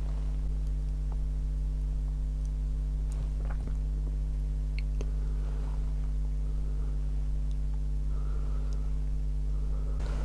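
Steady low electrical hum with a few faint, sharp clicks of small metal parts such as ball bearings being handled on a workbench.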